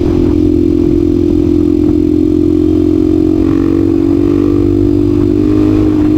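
Honda Tornado 250 single-cylinder four-stroke motorcycle engine running at steady, high revs, its pitch nearly constant with a slight dip and rise near the end.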